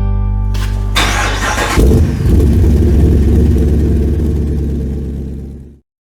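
A vehicle engine starting and then running loudly, fading and cutting off abruptly near the end. The tail of guitar music is heard in the first second.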